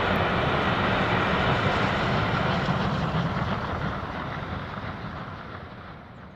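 DB class 01.10 three-cylinder steam locomotive working hard under load, a steady loud exhaust mixed with the rumble of its train, fading away over the last two seconds or so.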